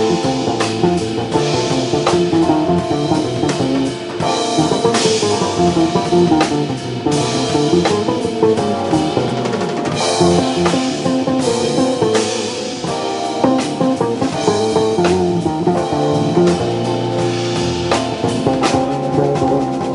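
Live jazz band playing: drum kit, electric bass and keyboards, with the drums keeping a busy, steady beat.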